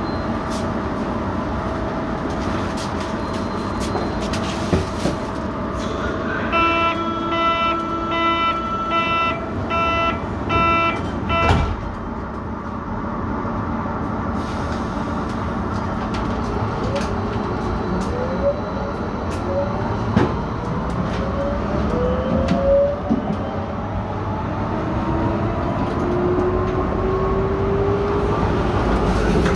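BVG HK06 U-Bahn train: over a steady hum, a repeated beeping door-closing warning sounds for about five seconds and ends with a thump as the doors shut. A few seconds later the train pulls away, its traction motors whining in rising tones as it speeds up, the motor sound the uploader calls strange.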